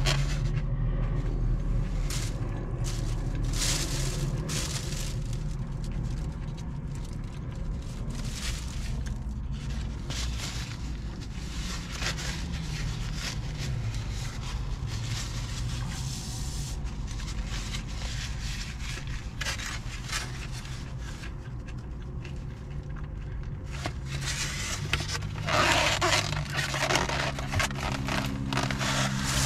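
Crunchy fried chicken slider being bitten and chewed, with irregular crackling crunches and the rustle of its wrapper, over a steady low rumble. A louder stretch of rustling comes near the end.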